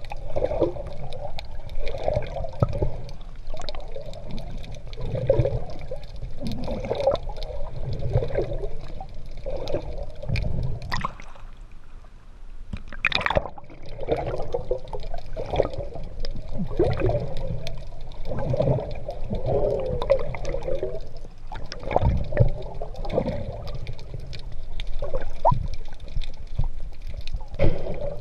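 Sea water sloshing and gurgling around a GoPro camera at the surface as a swimmer moves through it, in irregular surges with a brief quieter stretch about twelve seconds in.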